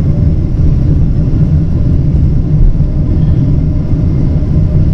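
Steady, loud, low rumble heard inside a Boeing 777-200 airliner's cabin during the landing, from the engines and airflow around the aircraft.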